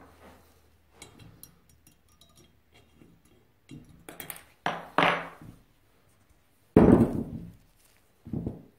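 Metal tool clicking and scraping inside the cast body of a 1930s Lake & Elliot screw jack, then a series of metal clinks and heavy thunks as the jack and its parts knock against the workbench, the loudest about seven seconds in.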